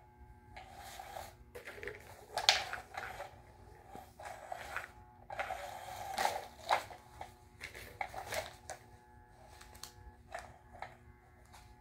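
Battery-powered cat toy running under its fabric cover: a steady motor whine, with irregular rustling and scrabbling as kittens pounce on and paw the fabric.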